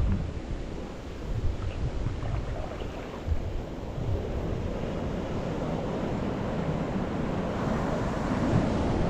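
Sea surf washing onto the beach, with wind buffeting the microphone in the first few seconds; the wash grows steadier and louder toward the end.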